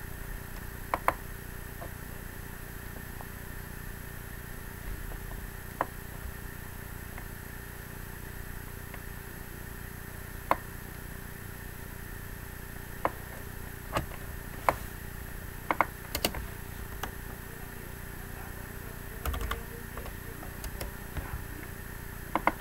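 Irregular single clicks of someone working a computer, about a dozen spread unevenly, over a steady faint electrical hum.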